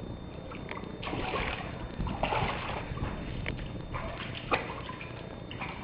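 Water splashing and sloshing in a few uneven surges, with one sharp click about four and a half seconds in.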